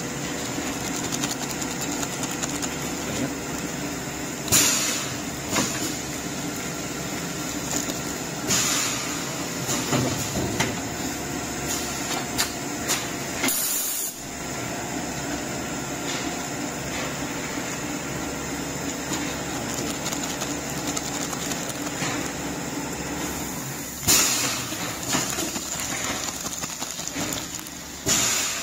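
Diaper bag packing and sealing machine running with a steady mechanical hum and hiss from its hot-air sealing outlets, broken a few times by loud crinkling of plastic diaper bags being handled at the machine.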